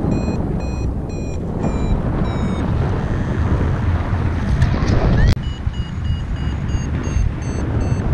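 Wind rushing over the camera microphone in flight, with a paragliding variometer beeping through it in short, evenly spaced beeps. The beeps stop after about two and a half seconds. About five seconds in, after a sharp click, they come back at a higher pitch, which signals a stronger climb in lift.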